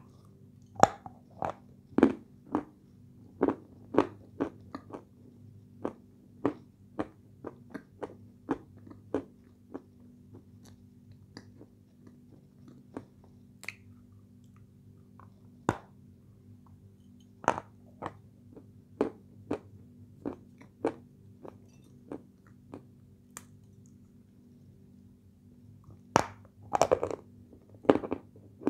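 Close-up biting and crunching of dry edible clay (light Turkestan clay) as it is chewed: sharp, crisp crunches, thick in the first ten seconds, sparse in the middle, and a quick run of them near the end. A faint steady hum lies underneath.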